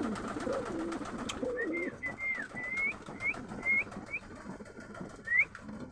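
Racing pigeons cooing low for the first second or so, followed by a string of about eight short, high, rising peeps.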